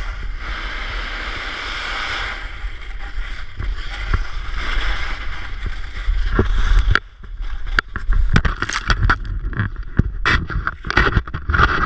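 Wind buffeting an action camera over the scrape of sliding downhill on snow. From about seven seconds in come a string of sharp knocks and thuds as the rider goes down and the camera tumbles in the snow.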